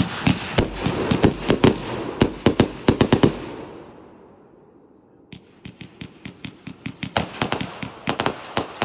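Consumer firework cake firing: a rapid run of shots and bursting pops for about three and a half seconds, fading into a short lull, then a second fast volley of shots from about five seconds in.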